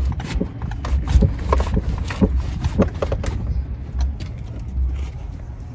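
Ural motorcycle's flat-twin engine running at low speed, a steady low rumble, while the three-wheeled motorcycle camper is eased into its parking spot.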